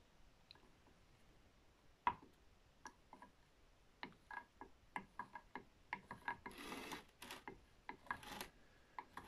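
Faint, scattered clicks and scrapes of a spoon being worked in a glass jar of liquid, getting busier after about four seconds, with two short rustling hisses near the end.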